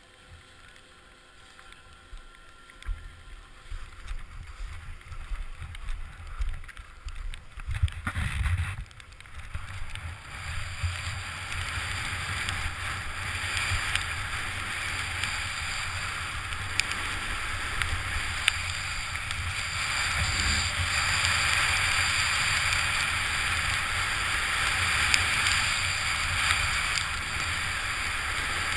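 Wind rushing over a helmet-mounted camera's microphone and skis hissing through snow on a downhill run. Quieter with a few knocks at first, it becomes a louder steady rush from about a third of the way in as speed builds.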